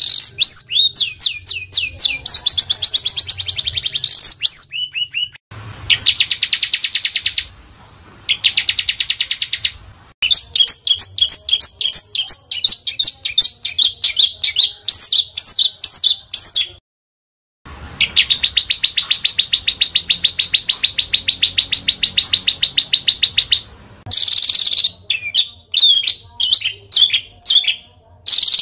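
Small songbirds singing in rapid, dense phrases: quick sweeping notes repeated several times a second and long buzzing trills, one lasting about six seconds. A brief complete break comes just past the middle.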